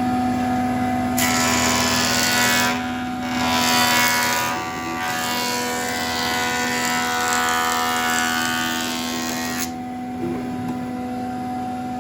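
A woodworking power tool's motor running with a steady whine. About a second in, a loud cutting noise starts as wood is taken off an edge; it dips briefly twice and stops about two seconds before the end while the motor keeps running.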